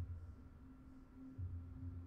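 Quiet room tone with a faint steady hum and soft low rumbles that come and go, the loudest near the start and again from about halfway through.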